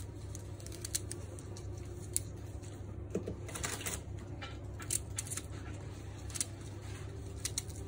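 Brussels sprouts being peeled with a small knife, their outer leaves snapped and cut off: scattered sharp, crisp clicks and snaps over a low steady hum.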